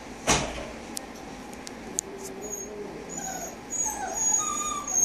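Seven-week-old puppies whimpering and whining in short high-pitched cries, starting about two and a half seconds in, after a single thump near the start.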